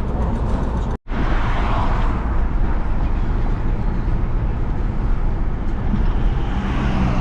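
Car cabin noise while driving: steady engine and tyre road noise, with a brief total dropout about a second in.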